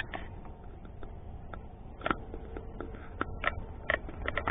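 Irregular small clicks and knocks, several in quick succession near the end, over a low steady rumble: handling noise as the camera is moved about in the canoe.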